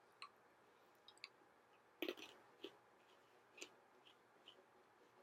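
Near silence broken by scattered faint clicks, about seven in all, the loudest about two seconds in.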